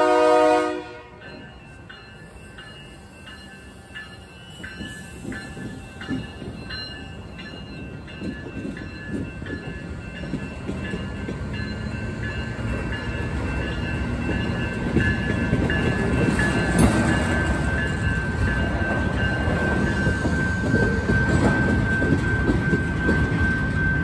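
A diesel locomotive horn sounding and cutting off about a second in. Then the locomotive and a string of tank cars roll past over the crossing, the rumble growing louder, with wheels clacking over the rail joints and a steady high squeal building in the second half.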